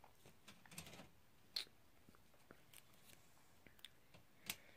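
Near silence: room tone with a few faint, short clicks, the clearest about a second and a half in and another near the end.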